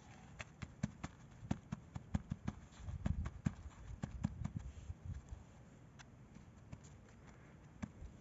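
Hand pressing and patting potting soil down around the sides of a black plastic plant pot to compact it: a quick scatter of small taps and crunches with a few dull thumps about three seconds in, thinning out over the last few seconds.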